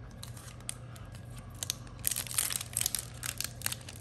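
Foil trading-card booster pack being torn open by hand: crinkling and tearing crackles that grow louder and busier about two seconds in.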